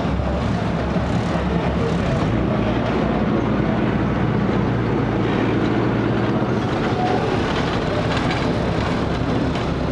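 Diesel engine of the Botchan Ressha replica steam locomotive running close by, a steady low drone.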